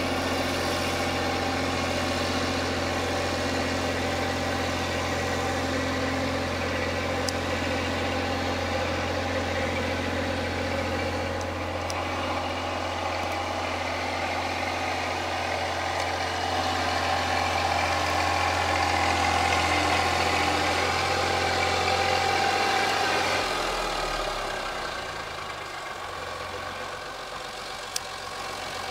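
Massey Ferguson 235 tractor engine running steadily while driving a rear-mounted flail mower through long grass. About 24 seconds in, the steady low hum drops away and the sound gets quieter, and a single sharp click comes near the end.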